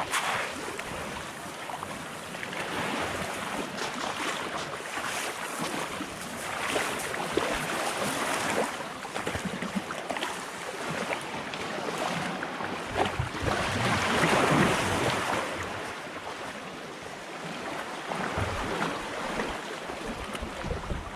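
Sea waves washing onto the shore, swelling and easing every few seconds, with wind rumbling on the microphone.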